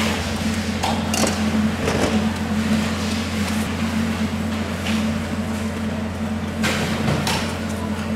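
Knife work on a large fish over a steady low machine hum. There are a few short, sharp scraping strokes of the steel knife, first against a honing steel and later slicing along the mahi mahi on a plastic board, with clusters about a second in and near the end.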